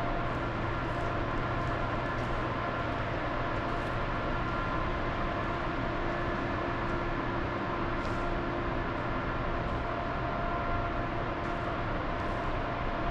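Steady mechanical drone of an underground parking garage: a low rumble with several unchanging hums held through it, from the garage's building machinery.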